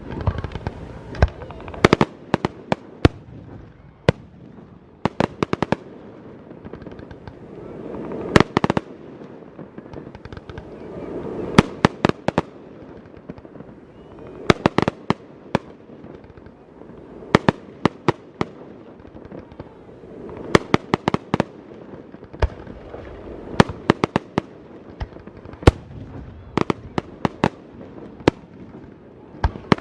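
Fireworks display: volleys of sharp, loud aerial shell bangs, several at a time, about every three seconds, with a duller rumble rising between the volleys.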